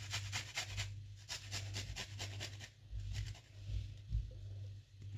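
Garlic cloves being grated on a small handheld stainless-steel grater: quick rasping strokes, about four or five a second, with a short pause about a second in, stopping a little under three seconds in. A steady low hum runs underneath.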